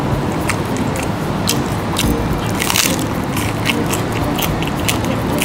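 Close-up wet eating sounds of raw marinated crab being bitten and chewed: many small sharp clicks and squishes, with a louder wet burst near the middle.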